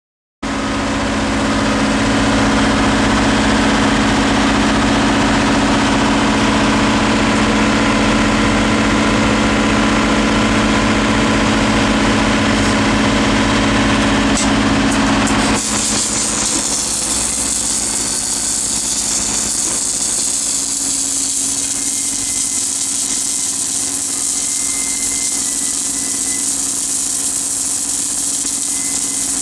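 Submerged arc welding rig running: a loud, steady machine hum. About halfway through the sound changes abruptly to a weaker hum under a steady high hiss.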